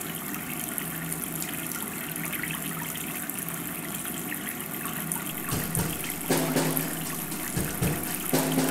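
A sink tap running, a steady rush of water, with a few short knocks past the middle.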